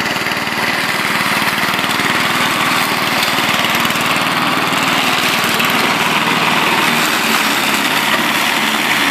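Radio-controlled lawn mower's small petrol engine running steadily as the mower drives through long grass, cutting it.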